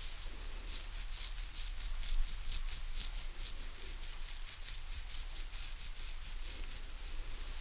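ASMR back-and-head scratching: fingernails scratching in quick, even strokes, about five a second, over a faint steady hiss.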